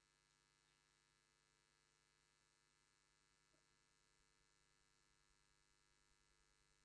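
Near silence: faint steady electrical hum on the recording.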